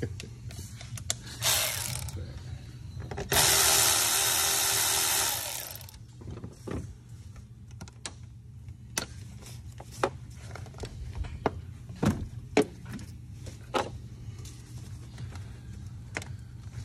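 Cordless power ratchet runs for about two and a half seconds, a few seconds in, undoing fasteners in the engine bay. It is followed by scattered clicks and knocks of hand tools and parts being handled, over a steady low hum.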